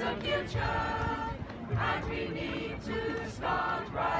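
A small choir singing unaccompanied, in held notes phrase by phrase with short breaks between.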